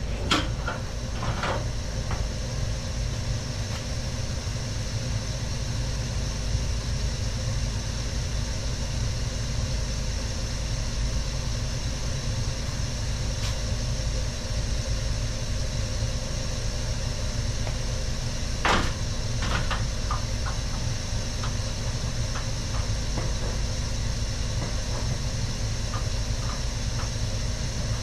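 Gas burner of an A.O. Smith Burkay copper-coil commercial water heater firing, a steady low rumble with an even hiss. A few sharp clicks stand out over it, the loudest about 19 seconds in.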